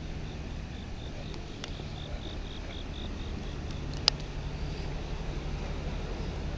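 An insect chirping in a high pitch about four times a second, fading out a little past the middle, over a low steady rumble. A single sharp click about four seconds in.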